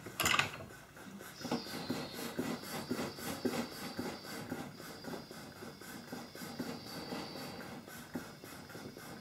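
A goldsmith's gas torch lit about a second and a half in, then burning with a steady hiss, a thin high whistle and an uneven flutter of flame. A sharp knock comes just before it lights.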